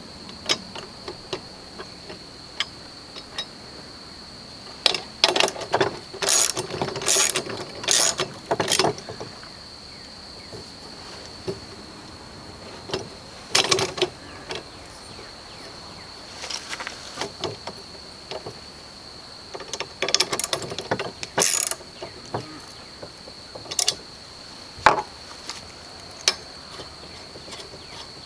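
Ratchet wrench clicking in short bursts as nuts on the mill's depth-post clamps are tightened, with a steady faint high whine underneath.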